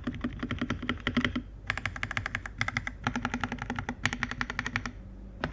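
Fast typing on a Redragon TS68 hotswap mechanical keyboard with factory-lubed Redragon Lemon switches and a thick silicone layer under the PCB. Quick runs of keystrokes break off briefly about a second and a half in and again near the end.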